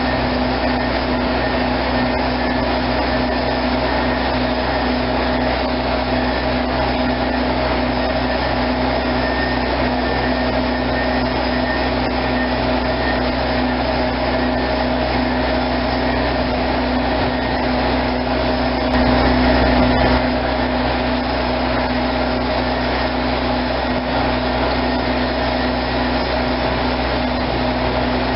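Heavy-equipment engine running steadily at a constant speed, a continuous drone with a steady hum in it. It swells briefly louder about two-thirds of the way through.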